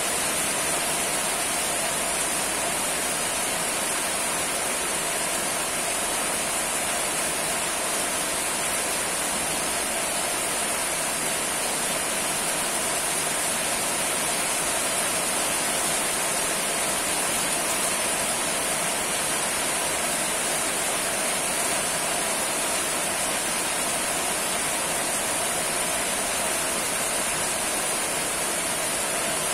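Steady, continuous rainfall, an even hiss of rain with no breaks or changes.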